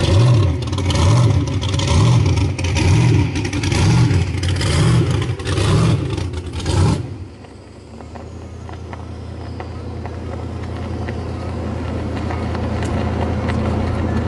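Low vehicle engine noise during a tow on a strap. A loud pulsing swells and fades about once a second, stops abruptly about seven seconds in, and gives way to a steady low hum that slowly grows louder.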